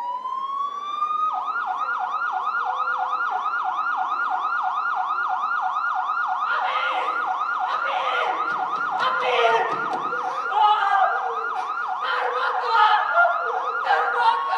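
Electronic emergency-vehicle siren sound effect: a slow wail switches about a second in to a fast, evenly repeating yelp, about three to four cycles a second, which carries on steadily. In the second half other irregular noises join over it.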